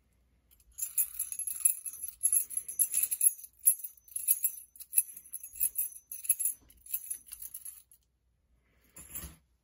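Small bells jingling, shaken in an uneven rhythm for about seven seconds, then stopping. A brief handling noise follows near the end.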